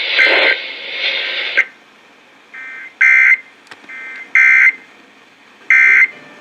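Emergency Alert System end-of-message code sent over the radio: three short, loud warbling data bursts about 1.4 s apart, each with a fainter copy just before it, after a second and a half of radio static. The bursts mark the end of the warning broadcast.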